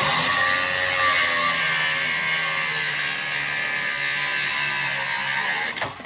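An angle grinder cutting through metal stock. It runs loud and steady for about six seconds, its motor pitch sagging slightly under load, and it stops abruptly near the end.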